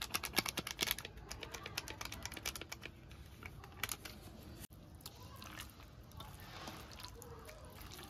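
Bare hand mixing wet spice paste into raw fish pieces in a steel bowl: quick squelching clicks, fast at first, then sparser and fading after about three seconds into a soft wet rustle.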